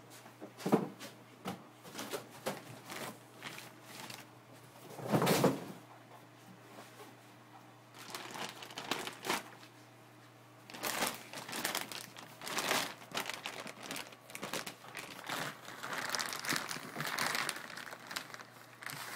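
Plastic bag crinkling and rustling in irregular bursts as it is worked off a network switch chassis by hand. There are two louder rustles in the first six seconds and denser crinkling from about eight seconds on.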